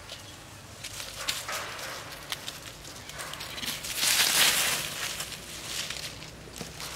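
Rustling and scuffling in dry leaf litter, with scattered crackles and a loud burst of rustling about four seconds in.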